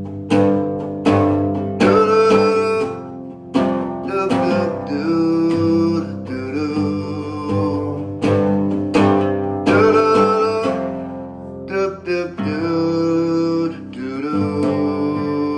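Guitar strumming chords in the instrumental close of a song. The chords come as a run of sharp strokes, each left to ring.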